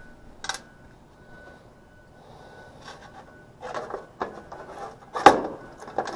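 Hand tools and small metal parts being handled during a capacitor replacement on an air conditioner: a sharp click about half a second in, then scraping and clicking from about three and a half seconds, with one loud knock a little after five seconds.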